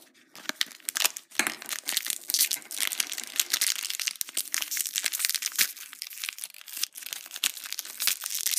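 Thin foil wrapper on a chocolate surprise egg being crinkled and torn open by hand: a continuous crackle of many small crinkles.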